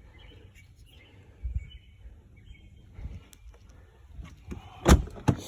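Quiet outdoor background with faint bird chirps, a dull thud about a second and a half in, and two sharp knocks close together near the end.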